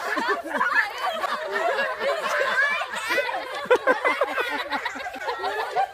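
Children laughing, several high voices overlapping in giggles and short shrieks.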